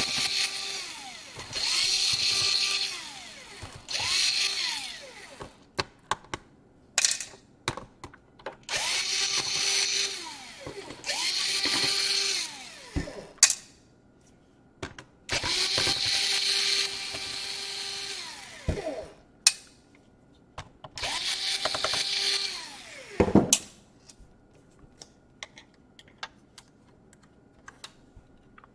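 Small electric screwdriver whirring in about eight short runs of a second or two, each spinning up and winding down in pitch, as it backs out screws. Light clicks and taps come between the runs.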